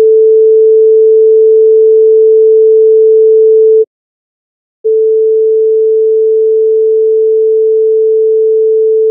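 A pure 440 Hz sine-wave test tone at full scale (0 dB), which stops about four seconds in. After a second of silence the same tone returns 3 dB quieter: quieter, but not drastically so.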